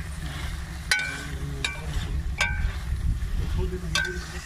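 Long metal ladle stirring liver masala in a steel karahi, striking the pot's side four times with short ringing clinks about a second apart. A low steady rumble runs underneath.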